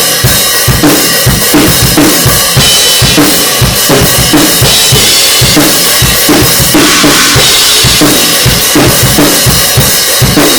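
Drum kit played in a steady groove: regular bass drum and snare strokes under constant cymbals, with the cymbals swelling briefly about two-thirds of the way through.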